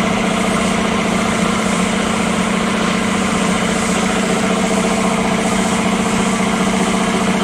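A motor running steadily, a loud unchanging machine hum with no rise or fall.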